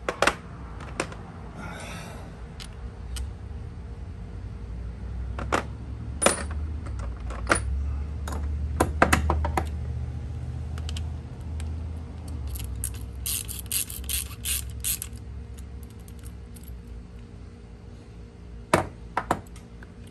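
Half-inch wrench clinking on the nut that holds the metal strap of an outboard starter solenoid as the nut is loosened: scattered sharp metallic clicks, with a quick run of rapid clicks lasting about two seconds a little past the middle.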